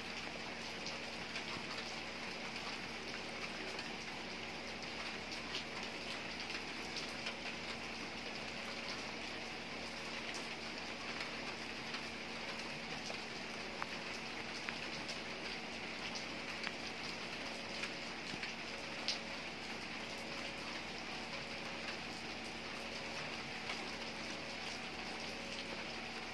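Heavy rain falling steadily, with scattered drops ticking sharply close by. A faint steady hum and a faint tone pulsing at an even pace run under the rain.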